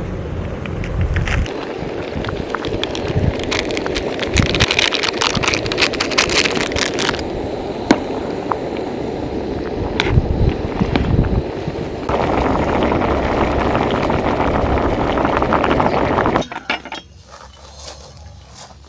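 Portable camping gas stove burner running under a pot, with scattered clinks of metal cookware and utensils. The burner noise gets louder about twelve seconds in and cuts off suddenly near the end, as the flame is shut off.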